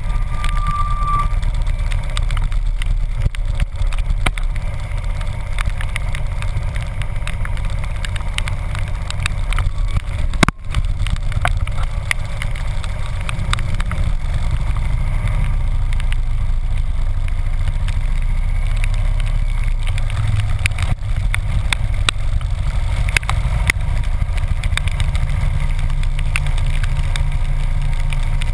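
Harley-Davidson V-twin engine running steadily as the motorcycle rides along, a low rumble, with frequent small ticks of raindrops striking the camera housing. The sound dips for an instant about ten seconds in.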